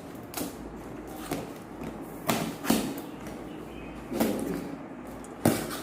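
A heavily taped cardboard shipping box being torn open: packing tape ripped and cardboard pulled apart, in about half a dozen sharp rips and knocks at irregular gaps.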